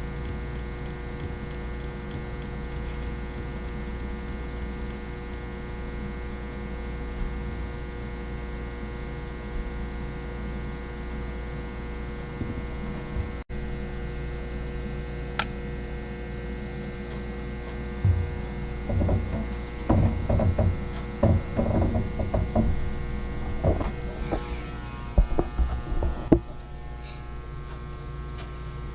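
Steady electrical hum with many pitches at once, from running equipment. In the second half, irregular knocks and handling clatter from about 18 s to 27 s.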